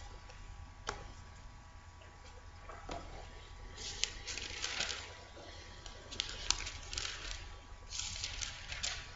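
Paper being handled and pages turned: bursts of rustling about four seconds in and again near the end, with a few sharp clicks, over a steady low hum.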